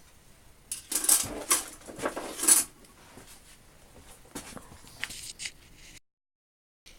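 Small hand tools being handled and set down, with a few sharp metallic clinks and clatters in the first two and a half seconds, then quieter handling noise. The sound cuts out abruptly for a moment near the end.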